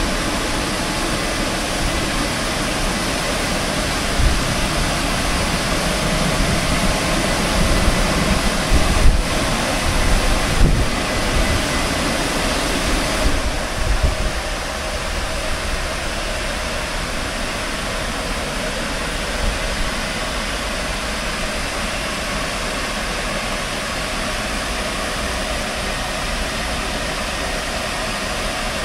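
Rollover car wash gantry travelling over a car, a steady rushing hiss of spraying water over the hum of its machinery. A deeper rumble with a few bumps in it drops away about halfway through, leaving the even hiss.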